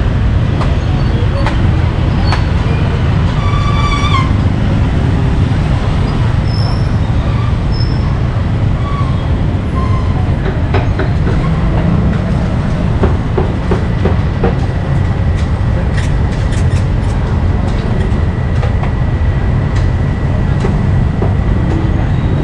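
Loud, steady low rumble of street traffic and motorbike engines, with scattered clinks and a brief high tone about three and a half seconds in.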